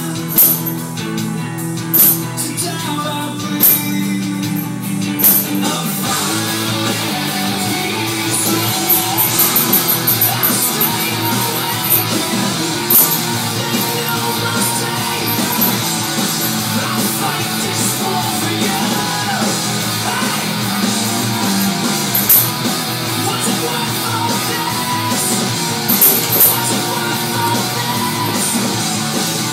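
Rock music with guitar and drums, with sharp cymbal crashes now and then; the music gets fuller and busier about six seconds in.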